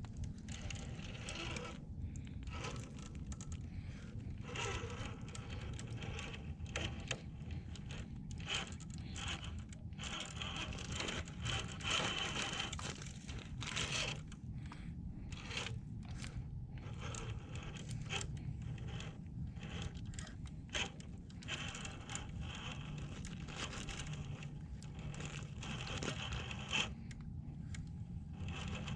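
Traxxas TRX-4 RC crawler working its way over rocks and dirt: an irregular run of scraping, crunching and crackling as its tyres and chassis grind over the rough ground.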